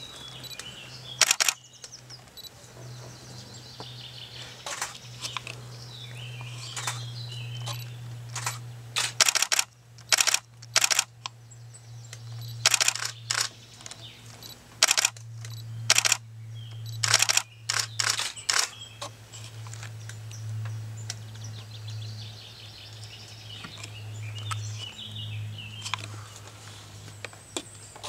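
Repeated sharp clicks in short clusters, over faint birdsong and a steady low hum.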